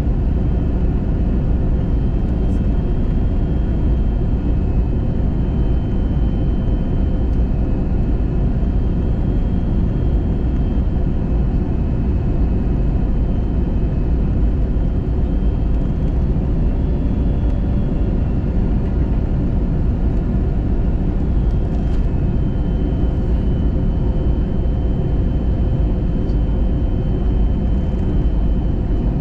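Airliner cabin noise during descent on approach: a steady low roar of engines and rushing air, with faint steady whines above it.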